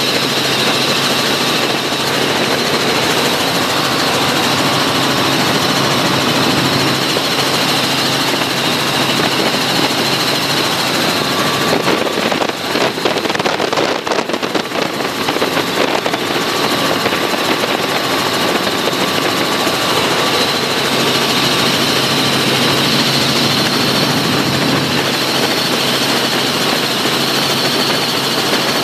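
Steady drone of a small helicopter's engine and rotor heard inside the cabin in flight. About halfway through the sound turns briefly uneven before settling back to the steady drone.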